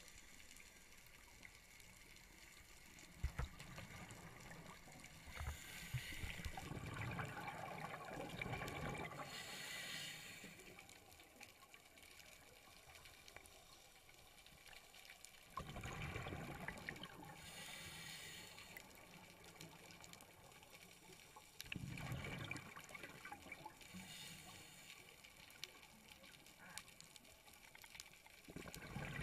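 A scuba diver's regulator breathing underwater: bursts of exhaled bubbles gurgling, each followed by the hiss of an inhale, repeating every six or seven seconds.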